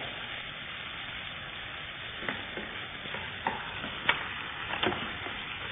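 Frog pieces sizzling as they stir-fry in oil in a pan, a steady frying hiss. About four light clicks come between two and five seconds in.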